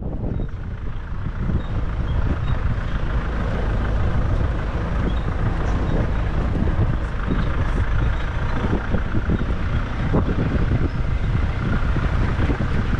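Nissan Navara D40 four-wheel drive on the move: a steady low rumble of engine and tyres with many small knocks and rattles throughout.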